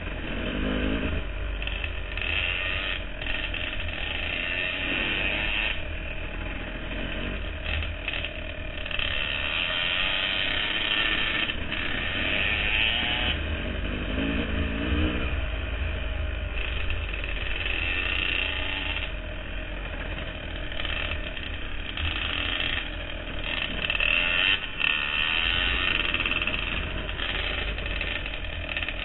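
Dirt bike engine running as the bike rides a trail, its revs rising and falling every few seconds, with a steady low wind rumble on the on-bike camera microphone.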